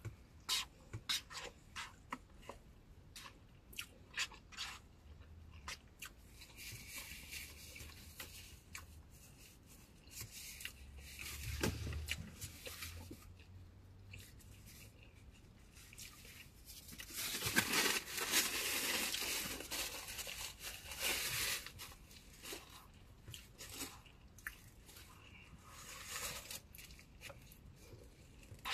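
Person eating lo mein and fried rice: quiet chewing with many light clicks. About 17 seconds in comes a louder noisy stretch lasting about four seconds.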